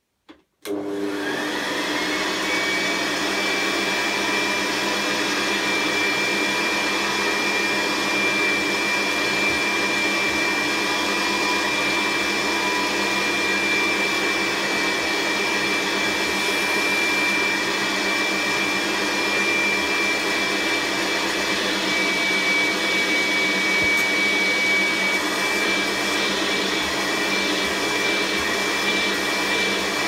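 Hoover Senior Ranger U4002 upright vacuum cleaner switched on under a second in. Its motor spins up with a rising whine and then runs steadily, holding a high whine.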